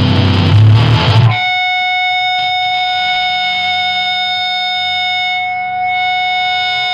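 Powerviolence band's recording: loud, dense distorted-guitar music stops about a second in. A single held, distorted electric guitar tone rings out steadily until it cuts off abruptly at the very end.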